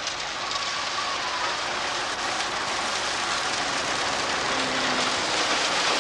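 Heavy construction machinery running: a steady, dense mechanical clatter and rumble.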